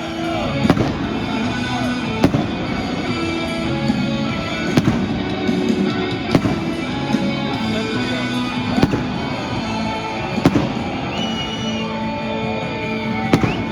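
Fireworks going off in sharp bangs every second or two, with music playing throughout.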